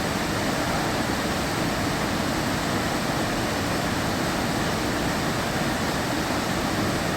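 Waterfall's falling water making a loud, steady rushing noise.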